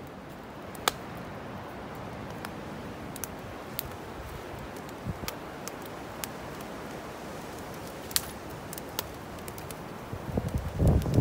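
Stick campfire burning, with scattered sharp crackles and pops. Near the end, louder rustling and knocks as green sticks are handled and laid on the fire.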